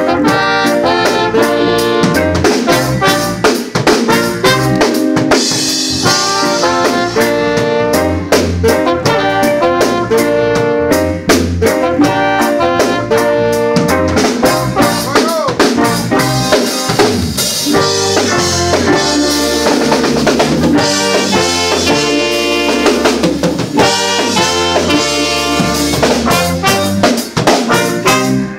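Live band playing a horn-led tune: two trumpets and an alto saxophone over a drum kit keeping a steady beat, with electric guitar in the mix. The music stops near the end.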